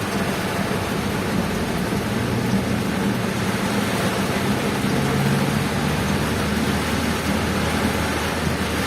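Heavy rain making a steady hiss over a vehicle's engine and road noise as it drives. A low engine hum runs underneath, its pitch shifting about halfway through.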